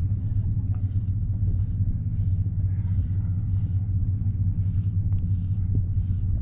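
Wind buffeting the microphone, a steady low rumble. Over it runs a soft swish repeating about one and a half times a second: fly line being stripped by hand during the retrieve.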